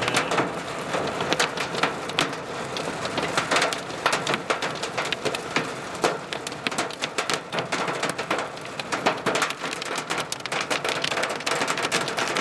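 Pea-sized hailstones pelting the car in a dense, irregular clatter of sharp ticks and knocks over a steady hiss of falling ice and rain.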